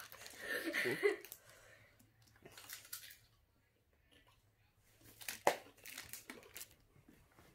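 A person chewing a crunchy chip, with several short, crisp crunches in the second half.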